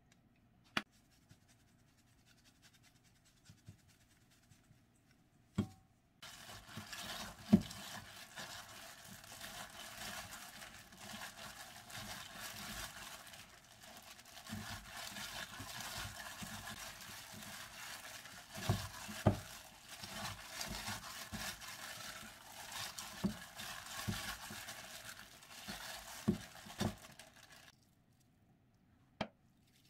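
A plastic bag worn over a hand crinkling steadily as it kneads a ground-meat and chopped-vegetable mixture in a stainless steel bowl, with occasional thumps. It starts about six seconds in and stops a couple of seconds before the end.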